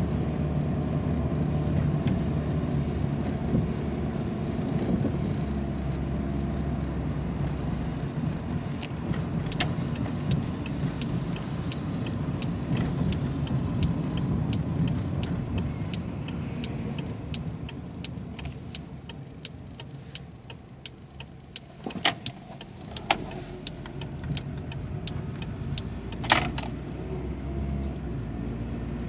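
Inside a moving 1994 Toyota Camry, its 2.2-litre four-cylinder engine and the road make a steady low drone while the car cruises in top gear. The drone eases off for a few seconds past the middle, then builds again. A regular ticking runs through the middle part, and a few sharp knocks come near the end.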